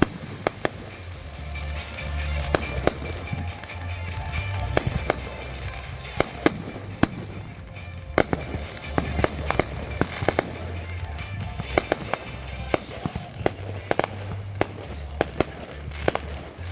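Fireworks going off: a rapid, irregular string of sharp pops and bangs, several a second, over a low rumble.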